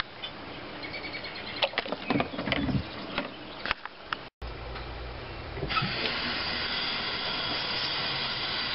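A few small knocks and splashes as a steel pulley on a wire is lifted out of a foaming molasses bath. Then, about six seconds in, a faucet starts running hot water into a stainless steel sink in a steady hiss as the pulley is rinsed under it.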